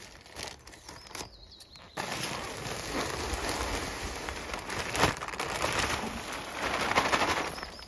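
Rain falling steadily. It begins suddenly about two seconds in, and there is one sharp knock about five seconds in.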